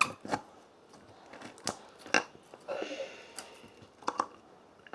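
A string of sharp plastic clicks and taps, with a short rustling stretch near the middle, as slime is put back into its plastic tub and the lid is pressed shut.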